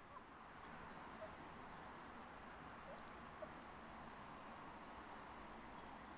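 Near silence: faint outdoor hiss with a few brief, faint chirps.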